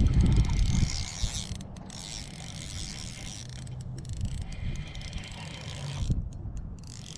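Spinning reel being cranked, its gears whirring in stretches broken by brief pauses, as a hooked pike is reeled in. A louder low rumble of handling or wind comes in the first second.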